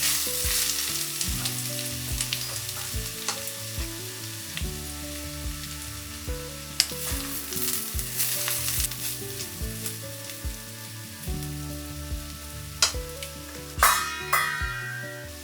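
Hot oil sizzling as food fries in a pan, with scattered light clicks of a utensil against the pan; the sizzle gradually dies down.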